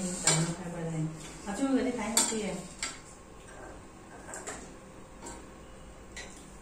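Spoons and forks clinking against bowls and plates while people eat, with a few sharp clinks scattered through.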